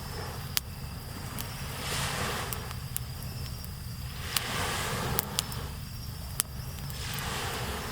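Small waves washing onto a sandy beach, swelling and fading every two to three seconds, over a low steady surf rumble. Insects chirp steadily, and a campfire gives several sharp pops.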